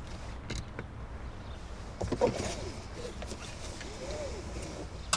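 Quiet car-cabin ambience with a steady low rumble. A few small plastic clicks come as a smartphone is pushed into a dashboard holder, then two short, faint squeaks about two seconds in and again near the end.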